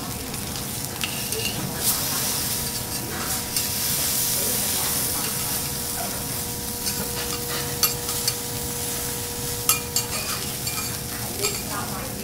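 Food sizzling on a teppanyaki griddle, with several sharp clicks of metal spatulas against the iron plate.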